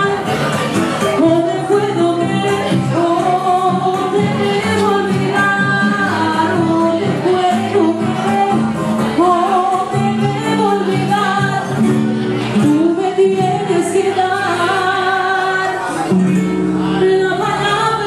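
A woman singing a song into a microphone over instrumental accompaniment, her voice holding and gliding through long melodic lines.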